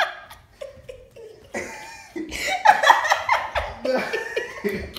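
People laughing hard and coughing in several loud outbursts, the loudest about halfway through.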